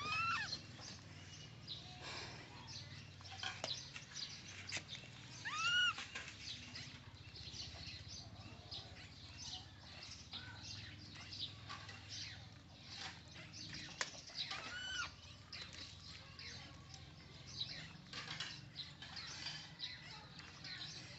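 Baby monkeys giving high, arching squeals, three times: near the start, about six seconds in and about fifteen seconds in. Between the squeals, frequent light rustles and clicks of the woven bamboo basket as they scramble about inside it.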